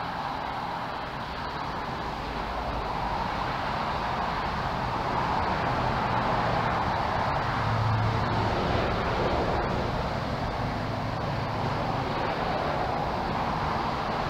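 Road traffic: a steady rush of tyre and engine noise from passing vehicles, swelling to its loudest about eight seconds in, then easing off.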